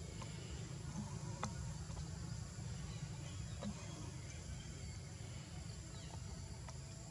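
Steady high-pitched insect drone over a constant low rumble, with a few faint clicks about one and a half and three and a half seconds in.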